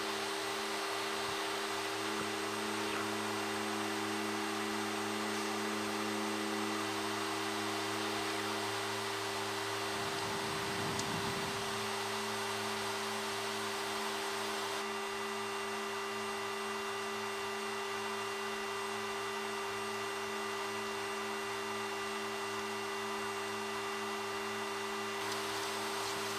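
Steady cockpit drone of a Fairchild Metro's twin Garrett TPE331 turboprop engines and propellers in cruise, a constant hum made of several fixed tones over a rushing noise.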